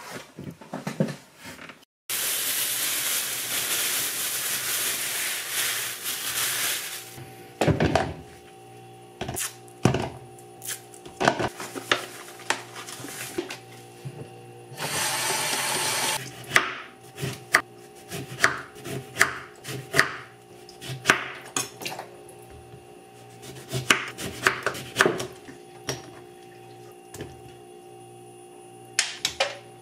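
Kitchen prep: tap water runs for about five seconds near the start and again briefly in the middle. Between and after the running water come irregular knocks and clicks of a knife on a wooden cutting board and of lemon slices going into a glass bowl. Quiet background music plays underneath.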